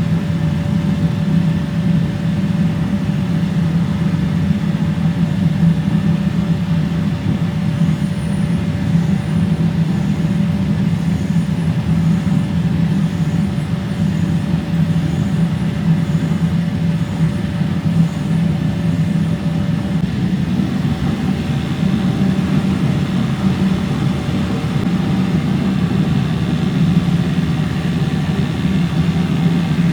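Steady, loud machine drone, heavy in the low range, with a thin steady whine that stops about two-thirds of the way through.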